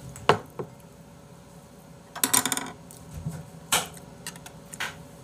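Metal spoon clinking against a soup bowl while stirring: a few sharp clinks, with a short rattling scrape about two seconds in.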